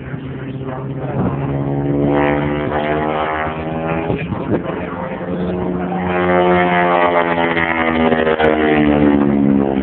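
Piston engine of a World War Two-era aircraft flying aerobatics, a steady drone that swells twice as the plane manoeuvres, with its pitch shifting slightly up and down.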